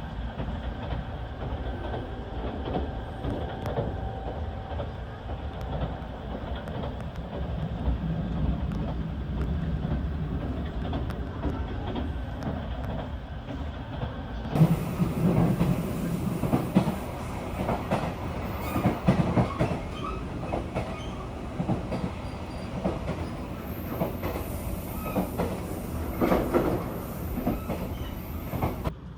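Interior sound of a JR 383 series limited express train carriage: a steady low rumble, then from about halfway a sudden brighter, louder run of rail clatter and sharp knocks from the wheels.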